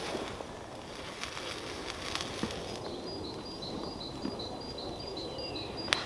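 Wood fire crackling in a small stainless steel camp stove, with sharp pops now and then, the loudest near the end. Through the second half a bird calls a quick run of short high notes, with a couple of falling notes.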